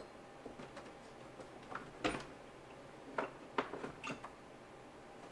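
Metal hand tools clinking: a few scattered sharp clicks, the strongest about two seconds in.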